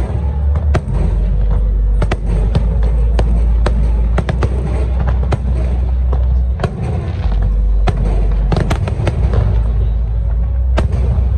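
Fireworks display: a rapid run of sharp bangs and crackles from bursting aerial shells, several a second, over a deep continuous rumble.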